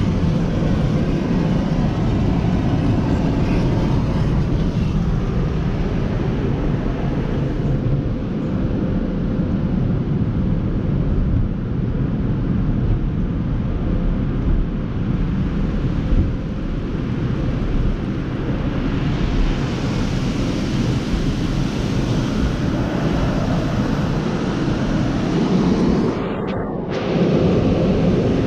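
Car-wash tunnel heard from inside the car: water spraying and cloth strips slapping and scrubbing over the windshield and body, one steady loud wash of noise that dips briefly near the end.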